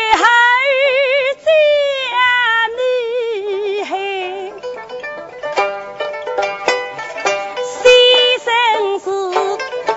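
A woman singing a Suzhou tanci aria in long, held, wavering notes, accompanied by a plucked pipa.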